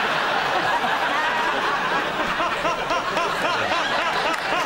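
Studio audience laughing, many voices overlapping at a steady level.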